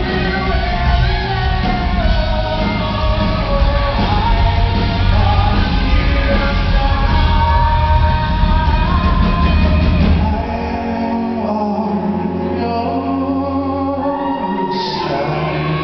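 Live rock band playing with a male lead vocal. About ten seconds in, the drums and bass drop out and sustained notes ring on.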